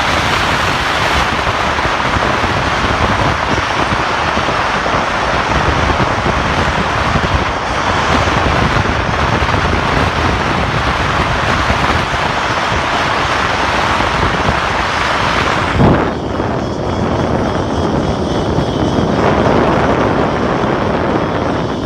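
Loud, steady wind noise on the microphone, a dense rush with no tone in it. A single sharp thump comes about sixteen seconds in, after which the rush sounds duller.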